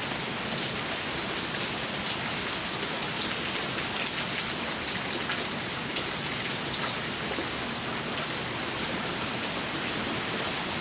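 Heavy rain falling steadily: a dense, even hiss with many individual drops ticking through it.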